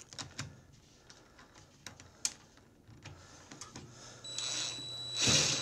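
Small metal clicks and taps of bolts and a socket being handled, then about four seconds in a cordless drill/driver runs for about two seconds with a steady whine, driving in a mounting bolt.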